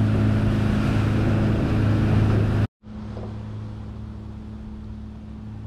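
Catamaran's engine droning steadily while motoring, heard inside the cabin. About three seconds in the sound cuts off abruptly, and a much quieter steady engine hum follows.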